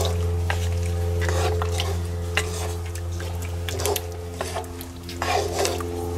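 A wooden spoon stirring a thick goulash in a cast-iron Dutch oven, with irregular scrapes and knocks of the spoon against the pot, over a steady low hum.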